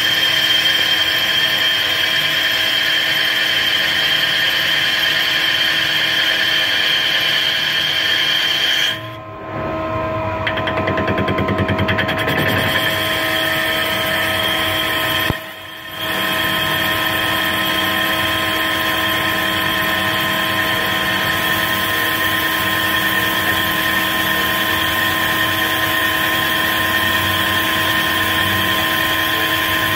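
Mazak CNC lathe turning a crankshaft: a steady machining whine of spindle and cut, holding several fixed pitches over a hiss. It dips briefly twice, about nine and fifteen seconds in.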